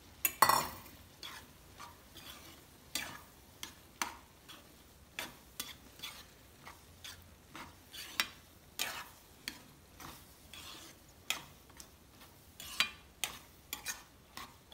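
Metal spoon stirring noodles, green peas and carrots in a frying pan, scraping and clicking against the pan irregularly. The loudest knock comes about half a second in.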